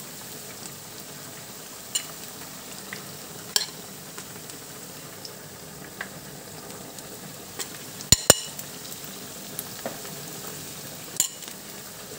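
Battered and breaded onion rings sizzling steadily in hot frying oil. A few sharp clicks cut through the sizzle, the loudest two close together about eight seconds in.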